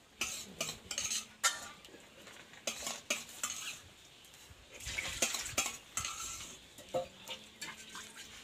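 A metal ladle scraping and clinking against an aluminium pot as milky semai is scooped out and poured into an aluminium basin, in irregular strokes with splashes of the liquid pudding.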